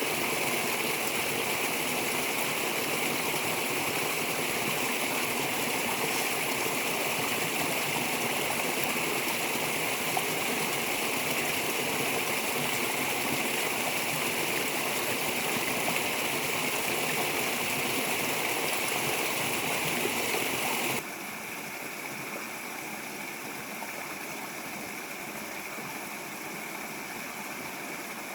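A steady rushing noise, like flowing water, with a bright high hiss in it. About 21 seconds in it drops suddenly to a quieter steady hiss.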